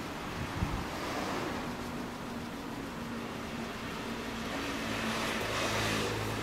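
Vehicle noise with a low steady hum, and a rushing swell about five seconds in, like a vehicle going past.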